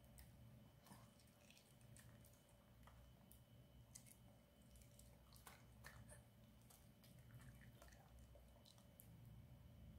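A Maltese dog chewing soft cheese-topped rice cakes taken from a fork: faint, irregular wet clicks and smacks.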